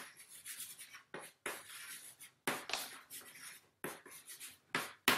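Marker pen writing on a board: an irregular run of short scratchy strokes, some quick and some drawn out for about half a second.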